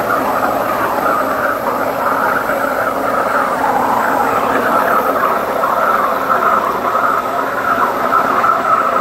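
Techni Intec 612 abrasive waterjet, fed by a 66,000 psi pump, cutting a plate. The jet makes a loud, steady hissing rush with water splashing, and a faint high steady tone sits above it.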